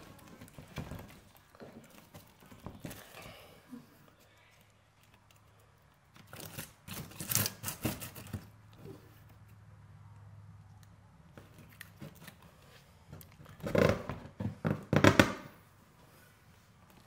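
Split spruce root being pulled through stitch holes in birch bark, with the bark crackling and the root scraping. There are two spells of it, a first about six seconds in and a louder one near the end.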